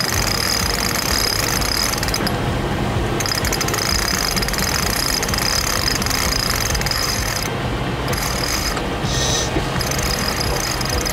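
Self-tailing sailboat winch being cranked with a winch handle, its pawls clicking rapidly as a line is ground in. The cranking pauses briefly a few times.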